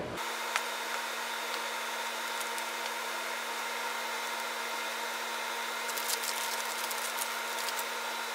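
Steady hum with hiss and a fixed pitched drone, like a running room appliance or fan, with a few faint clicks and crinkles about six to seven seconds in.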